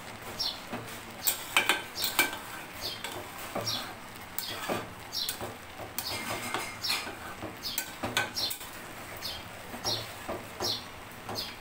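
Metal spoon stirring a thick curry in an aluminium pot, scraping and clinking against the pot's sides and bottom in irregular strokes, loudest about a second or two in. A short, high chirp repeats about once or twice a second throughout.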